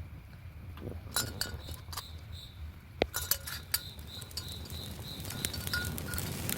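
Crickets chirping in a steady pulsing rhythm, with scattered sharp clicks and clinks over them.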